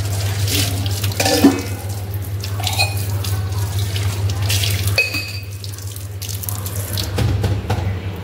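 Water splashing into a steel kitchen sink from a tap, with a few sharp clinks of steel utensils, one ringing briefly about five seconds in, over a steady low hum.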